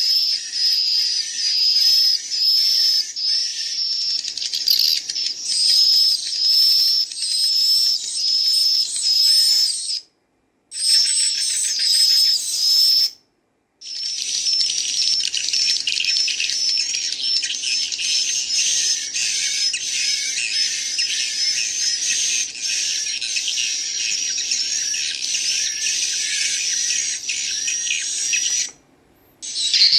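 Recorded swiftlet chick calls played through a speaker: dense, fast, high chirping ('ci ci ci, cut cut cut') with adult swiftlet calls mixed in. The sound cuts out briefly about ten and thirteen seconds in, and again near the end.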